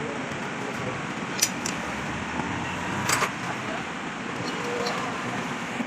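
Steady vehicle and street noise, with a few sharp metallic clinks about a second and a half and three seconds in.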